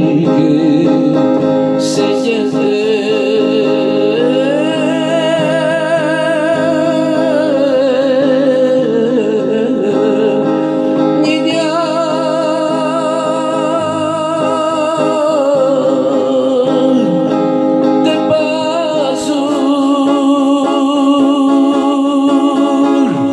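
A song with a man's voice and electric guitar over a backing track of sustained chords; the melody goes in long, wavering held notes.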